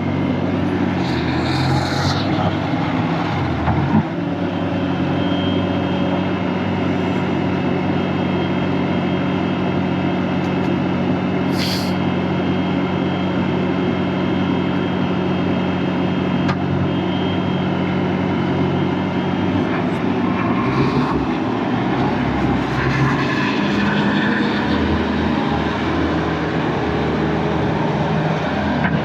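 Diesel engine of a Bobcat S510 skid steer running steadily during its operational test. About twenty seconds in the sound shifts, with more low rumble and a wavering pitch; a brief hiss comes near the middle.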